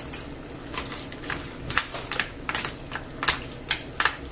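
Clam shells clicking and clattering against each other in a pan as a spoon pushes them around, a run of irregular sharp clicks a couple of times a second.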